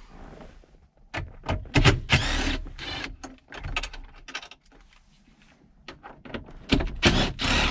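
Irregular clicks, scrapes and rattles of a wrench and loosened dashboard parts as the factory stereo's 10 mm mounting bolts are undone and the radio is worked loose, with a louder rasping burst about two seconds in and another near the end.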